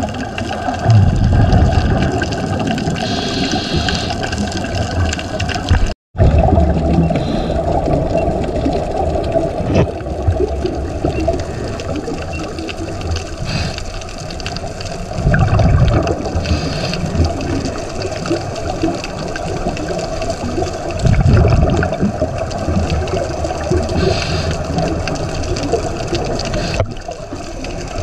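Underwater sound on a scuba dive: a steady wash of water noise with the diver's regulator exhaust bubbles surging every several seconds. The sound cuts out for an instant about six seconds in.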